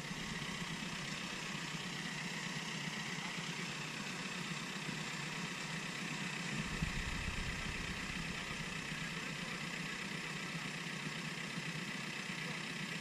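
Off-road vehicle engine running under load as its wheel spins and churns in deep mud, with a louder low rumble for about a second a little past halfway.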